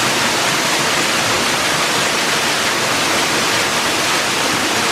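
Waterfall rushing steadily, a loud even wash of falling water.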